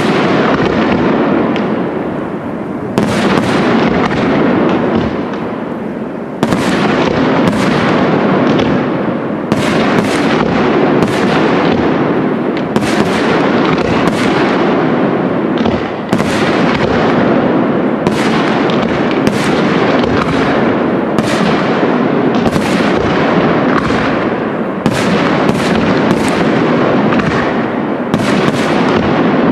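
Aerial fireworks display: shells launching and bursting in quick succession, a dense run of sharp bangs about one a second over a continuous rumble.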